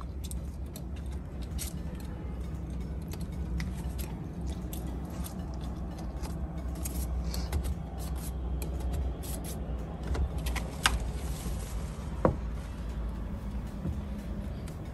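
Hand squeegee scraping and ticking over window tint film on a car's side window glass, in an irregular run of short strokes with one short squeak about twelve seconds in, over a steady low hum.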